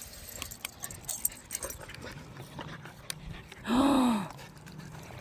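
Dogs panting, with one short, loud dog whine about four seconds in, its pitch rising and then falling.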